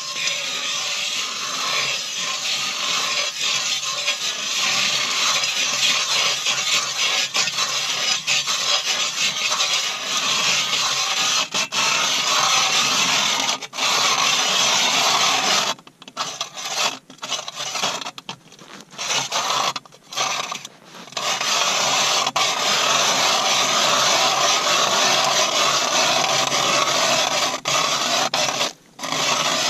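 Mora manual ice auger being cranked through lake ice: a steady, loud scraping grind as the blades shave the ice, broken by several short pauses a little past halfway and once more near the end.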